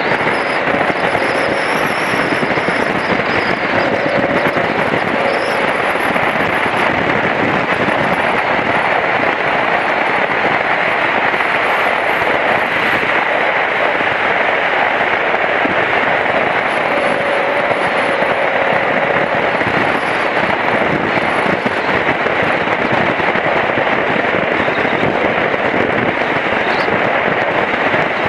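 Steady rush of wind noise over the microphone at road speed on a BMW F700GS motorcycle, with the bike's parallel-twin engine running underneath.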